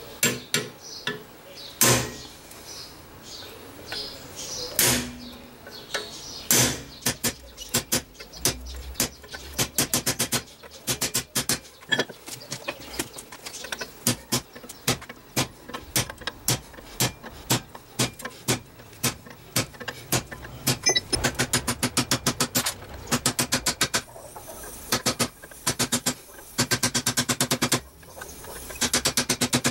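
Hammer blows on steel over an anvil, forging a piece of railway spring steel. A few separate heavy blows come first, then quick runs of strikes at several a second.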